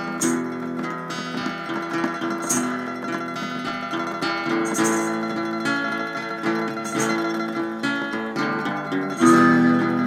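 Spaghetti-western-style instrumental music led by plucked acoustic guitar, with a short sharp percussion hit about every two seconds.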